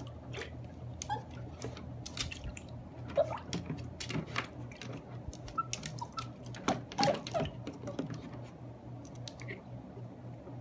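Water splashing in a plastic kiddie pool, with irregular light knocks, as a Yorkshire terrier paws and noses at a plastic cup floating in it. The splashing is busiest in the middle, with a low steady hum underneath.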